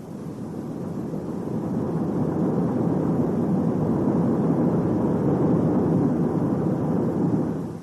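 A steady, vehicle-like rushing noise that builds over the first two seconds and stops suddenly near the end.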